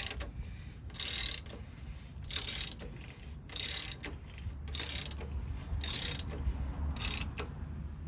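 Ratchet wrench being worked in short strokes, about seven rasping ratchet runs roughly a second apart, as during an oil change.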